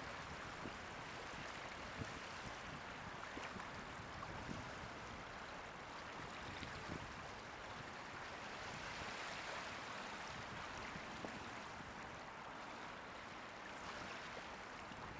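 Small sea waves washing on the shore: a steady hiss that swells and eases, with a few small splashes.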